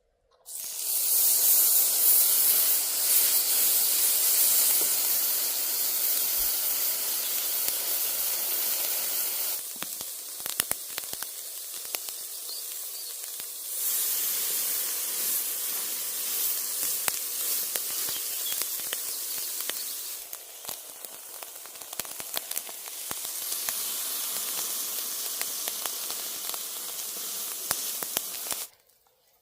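Food sizzling in hot fat in a pan: a dense, steady hiss that starts suddenly, eases off and swells again a couple of times, and stops abruptly near the end.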